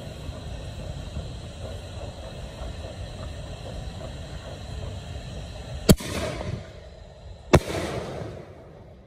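Two aerial fireworks bursting overhead: two sharp bangs about a second and a half apart, each followed by a short trailing tail of noise. A steady low rumble runs underneath until the first bang.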